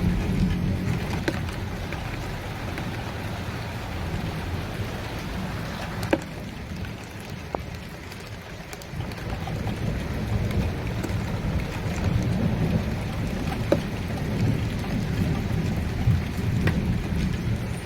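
Steady rain falling, with a few sharp drops tapping on a hard surface, under a low rumble of thunder that eases about a third of the way in and then builds again.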